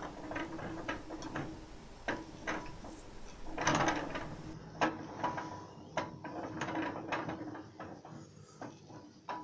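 Crown wheel and pinion gear of a railway pump cart turned by hand, driving the axle in its bearings: the gear teeth click irregularly, about two a second, with a louder burst of clicks about four seconds in.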